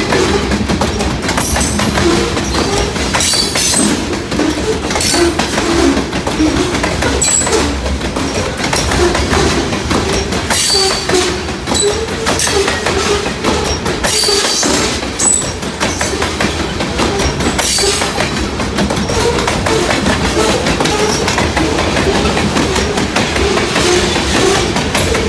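Loaded grain train's cars rolling by, steel wheels clattering over the rail joints, with short high-pitched squeals from the wheels now and then.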